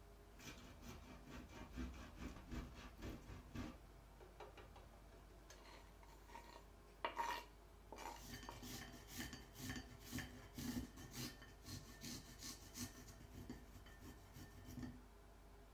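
Garlic cloves being grated on a fine rasp grater over a ceramic dish: rhythmic scraping strokes, about two to three a second, in two runs with a pause between them. There is a brief louder scrape about seven seconds in.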